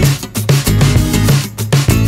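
Background music with a steady beat: drums and bass under a guitar.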